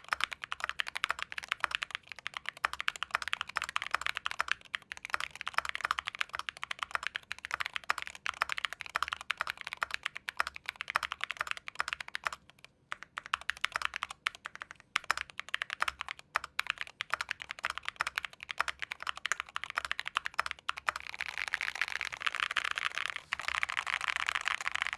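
Fast typing on a Monsgeek M2 full-size aluminium-case, gasket-mount keyboard with JWICK Splash Brothers switches and PBT keycaps: rapid, loud keystrokes. The stock Echo stabilisers tick. There is a short pause about halfway, and the clatter gets denser over the last few seconds.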